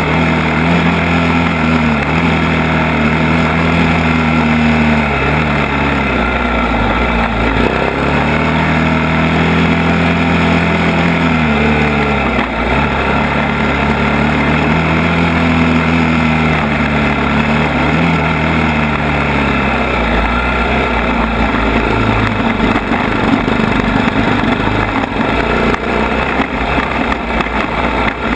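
ATV engine running under changing throttle, its pitch rising and falling in repeated slow swells, with steady wind and trail noise over it. About two-thirds of the way through, the engine note turns rougher and less even.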